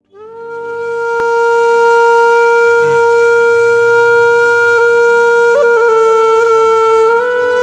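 Background music: a wind instrument holds one long note, sliding up slightly into it at the start over a soft low drone. It bends briefly about five and a half seconds in and steps up in pitch near the end.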